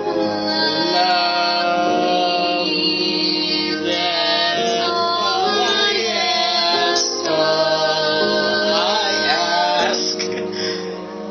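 Music: a sung ballad with a voice over steady instrumental accompaniment.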